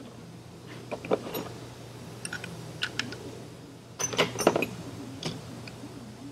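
Steel measuring tools clicking and clinking as a bore gauge and its setting micrometer are handled and fitted together in a tool case, in several short clusters, loudest about four seconds in. A steady low hum runs underneath.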